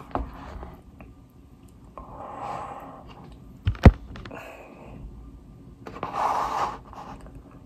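Eating instant noodles from a cup with wooden chopsticks: a single sharp click of the chopsticks just before four seconds in, the loudest sound, between two soft breathy rushes of air.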